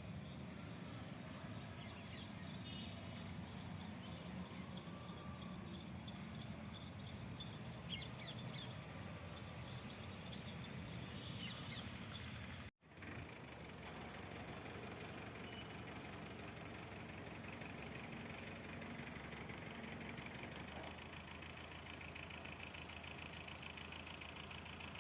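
Tractor engine powering a combine harvester, running steadily with a low rumble. The sound cuts out briefly about halfway through.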